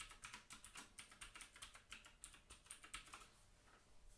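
Faint typing on a computer keyboard: a quick run of key presses for about three seconds, then only a few scattered clicks.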